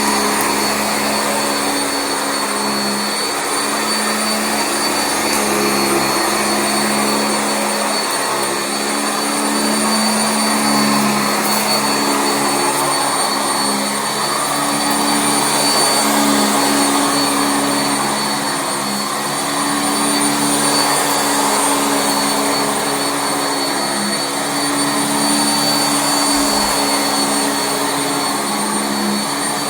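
Sanitaire SC679J commercial upright vacuum cleaner running on carpet: a steady motor whine with its low hum swelling and easing every few seconds as it is worked back and forth.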